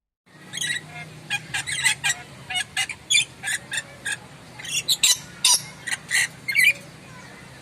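Moluccan lory (nuri Maluku) giving a rapid series of loud, sharp, shrill squawks and screeches, about twenty short calls in irregular bursts, some warbling, over a faint low steady hum.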